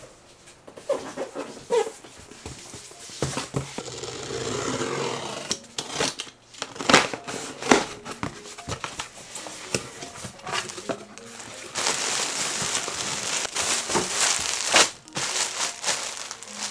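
Unpacking a parcel: a cardboard box being opened and handled, with scrapes and sharp clicks. In the second half comes a denser crinkling of a clear plastic bag around a knit sweater.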